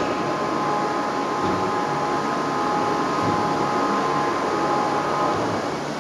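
SNK RB-4VN double-column five-face machining center running: a steady mechanical hiss with a whine of several steady tones that stops about five and a half seconds in.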